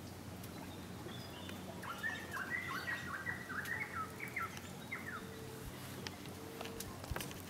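A bird calling in a quick run of short chirping notes for a few seconds in the middle, followed by two low drawn-out notes near the end, over a steady low hum.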